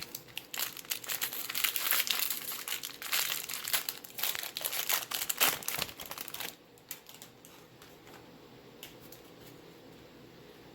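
Wrapper of a baseball card pack being torn open and crinkled, a dense crackling for about six seconds. Then it drops away to a few faint light clicks and rustles as the cards are handled.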